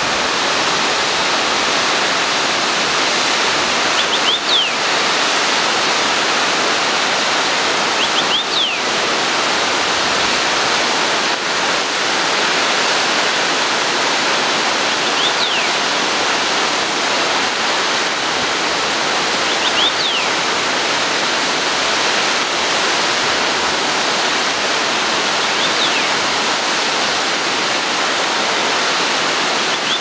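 A tall waterfall rushing steadily, a dense unbroken roar of falling water. A faint, short, high whistled note recurs every four to six seconds over it.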